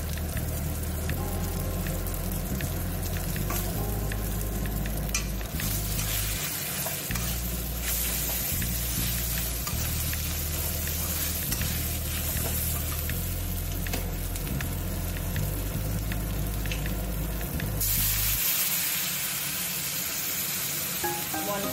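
Spice masala sizzling as it fries in a kadai, stirred and scraped with a spatula. The sizzle grows louder and brighter about 18 seconds in.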